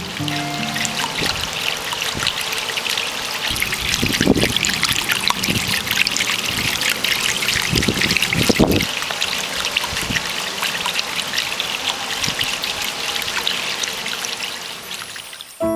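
Water of a baptismal font spilling over the lip of its upper basin and splashing into the gravel-lined basin below: a steady trickle. A few dull low thumps come about four and eight seconds in.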